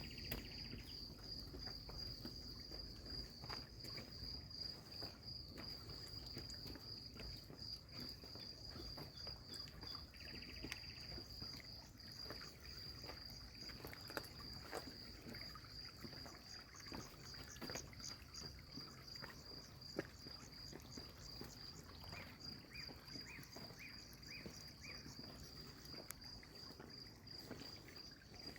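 A cricket trilling steadily at a high pitch in a fast pulsing rhythm. A few short, lower calls from another insect join in about three-quarters of the way through, over faint clicks and rustles.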